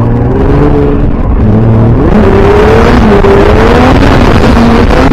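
Twin-turbo Nissan 370Z's 3.7-litre V6 heard loud from inside the cabin, its revs climbing sharply about two seconds in and then rising and falling under throttle.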